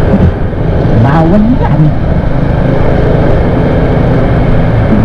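Steady wind rush and road noise on a riding motovlogger's microphone, with a Yamaha NMAX 155 scooter's engine running underneath. A brief rising tone comes about a second in.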